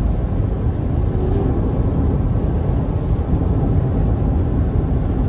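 Steady road noise inside a moving car: a low, even rumble of tyres and engine.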